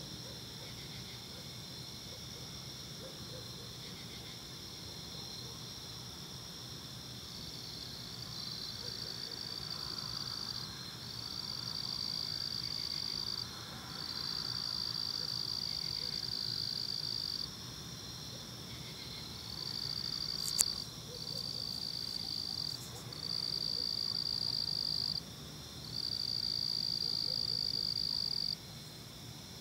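Night chorus of crickets trilling steadily at a high pitch. From about a quarter of the way in, a nearer insect's louder high trill joins in bouts of two to four seconds separated by short gaps. One sharp click about two-thirds of the way through.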